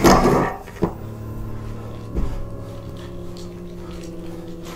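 A low steady hum made of several held tones, with a sharp click about a second in and a soft thump about two seconds in.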